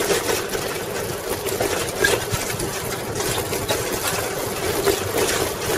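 1995 Schwinn Classic Cruiser bicycle rolling over a wooden plank bridge deck and onto pavement: a steady mechanical rattle and hum from the tyres and frame, broken by a few sharp knocks.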